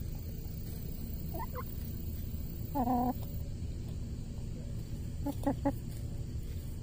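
Domestic chickens clucking as they forage: a pair of short notes about a second and a half in, a longer call near three seconds, and a quick cluster of clucks about five and a half seconds in. A low steady rumble runs underneath.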